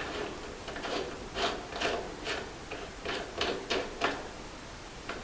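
Crank remover tool being screwed by hand into the threaded end of an exercise bike's crank arm: a run of short scraping clicks, about two a second, as the tool is turned in the threads.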